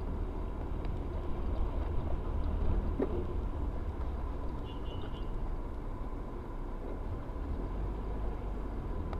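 Steady low rumble of a car's engine and tyres on the road, heard inside the cabin through a dashcam, with a faint steady whine above it.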